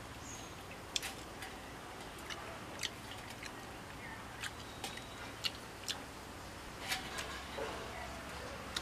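Eating by hand: scattered small sharp clicks and smacks as roasted mutton leg is torn apart with the fingers in a stainless steel bowl and eaten.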